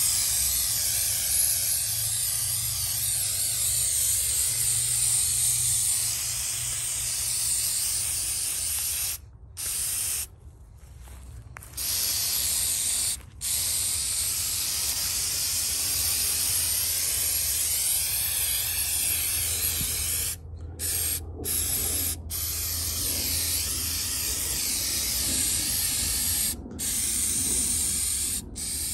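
Aerosol can of spray-on rubber coating spraying in long steady hisses, with several short breaks, the longest about ten seconds in.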